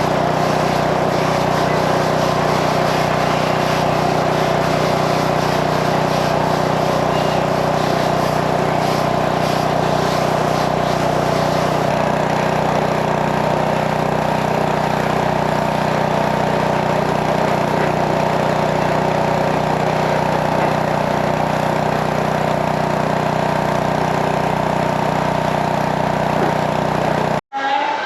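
Engine of a gas-powered pressure washer running steadily at constant speed. It cuts off suddenly near the end.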